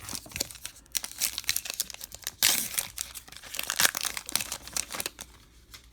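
Baseball card pack wrapper crinkling as it is handled and torn open, with the loudest rip about two and a half seconds in.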